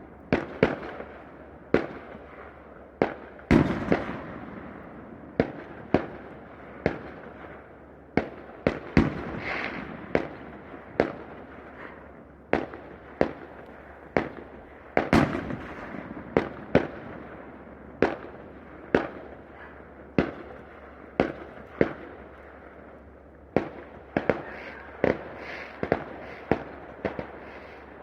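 Fireworks display: shells bursting one after another at uneven spacing, roughly one to two sharp bangs a second, each trailing off in a fading rumble and crackle.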